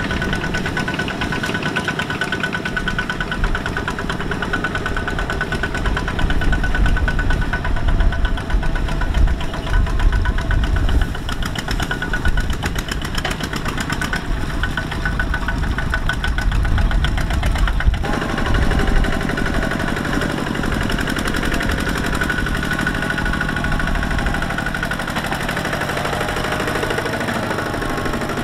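Two-wheel walking tractor's single-cylinder diesel engine chugging steadily as it pulls a loaded trailer through mud. The engine sound changes abruptly about two-thirds of the way through, as a different tractor's engine takes over.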